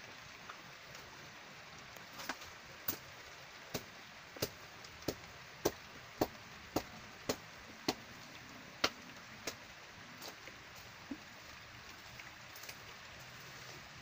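Steady rain falling on a river and the vegetation around it. From about two seconds in, about a dozen sharp knocks come at roughly two a second, then they thin out to a few fainter ones.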